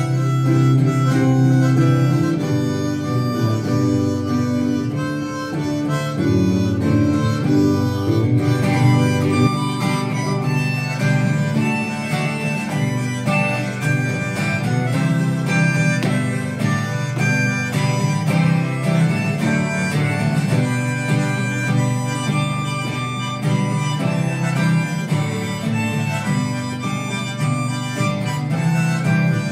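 Harmonica playing a melody over strummed acoustic guitar accompaniment, with no singing. The tune changes about nine seconds in.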